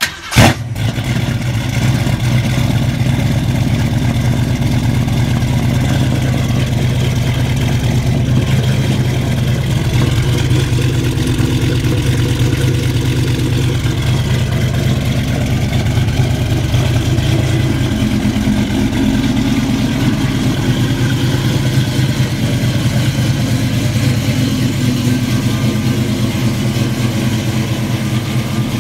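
1965 Ford Mustang coupe with a new dual exhaust and Flowmaster Super 44 mufflers starting up with a sudden loud burst, then idling steadily through the exhaust.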